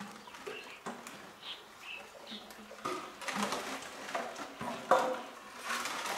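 Plastic-bottle fish traps being handled on a string, the bottles knocking and rattling against each other, with a sharper knock about five seconds in.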